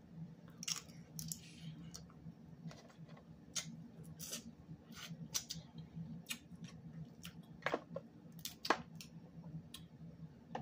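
Close-up eating of snow crab: irregular sharp clicks and crackles of crab shell and chewing, with a few louder snaps about eight and nine seconds in, over a low steady hum.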